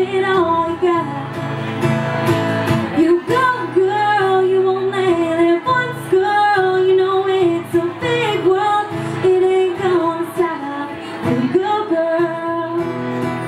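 A woman singing a melody with acoustic guitar accompaniment.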